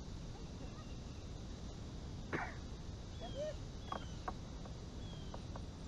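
Quiet outdoor ambience: a steady low rumble with a few faint short chirps and clicks scattered through it, the most noticeable a little past two seconds in.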